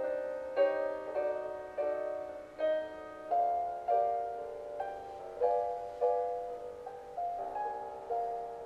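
Slow, gentle piano music: a chord or note struck about once a second, each fading before the next.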